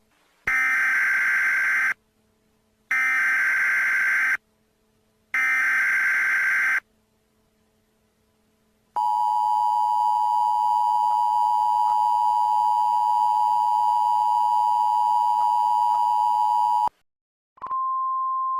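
Emergency Alert System tones: three bursts of the buzzing SAME header data, each about a second and a half long with a short pause between, then the two-tone EAS attention signal held steady for about eight seconds and cut off sharply. Just before the end a single, quieter steady tone begins.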